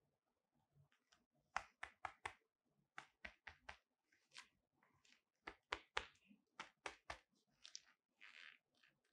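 Leather-gloved hands handling a flexible metal gooseneck arm and its plastic end fittings: an irregular run of sharp clicks and taps, with a few short rustles toward the end.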